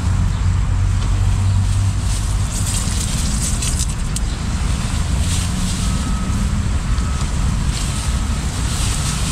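Fish frying in hot oil, sizzling, with the hiss swelling and easing every few seconds over a steady low rumble.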